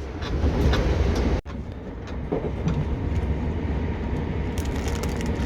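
Cabin noise of a Class 377 Electrostar electric multiple unit on the move: a steady low rumble of wheels on rail, with a momentary dropout about a second and a half in.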